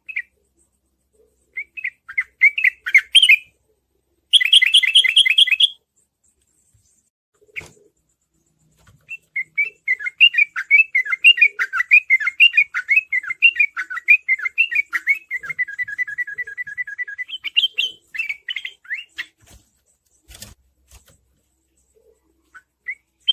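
Sooty-headed bulbul (trucukan) singing in quick chattering phrases, with a long, fast rolling run of notes in the middle: the 'ropel' song. A short harsher burst comes about four seconds in, and a couple of sharp clicks are heard.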